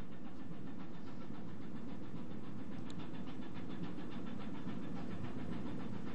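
A ship's engine running steadily, an even low hum heard on board.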